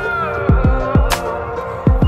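Background music: a beat of deep kick drums that drop in pitch and sharp snare-like hits, under a sliding melodic line.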